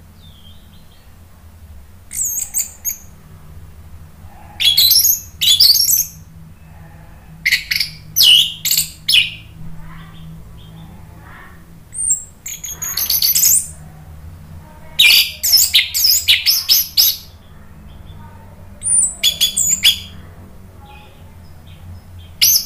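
Orange-headed thrush singing: loud, varied, high-pitched phrases of one to two seconds each, broken by short pauses, over a faint low steady hum.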